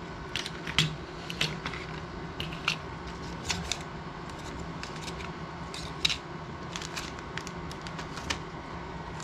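Foil blister packs of tablets and plastic medicine sachets being handled on a table: irregular light clicks and crinkles as they are picked up, rustled and set down. A faint steady hum runs underneath.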